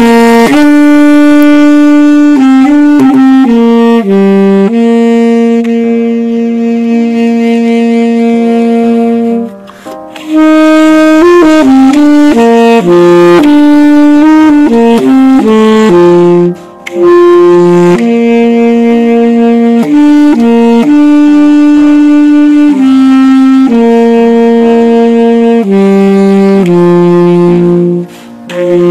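Solo wind instrument playing a slow melody, one note at a time, with long held notes and a few quicker passages, broken by three short pauses.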